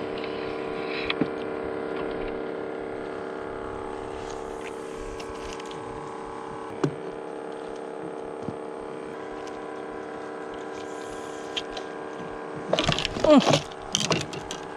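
Small boat's motor running steadily with a low, even hum. About thirteen seconds in a person's voice calls out loudly and briefly over it.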